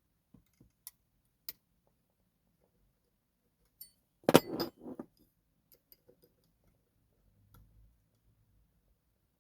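Lock-picking tools working in a TESA T60 dimple lock: scattered small metal clicks, with a louder clatter of metal on metal about four seconds in.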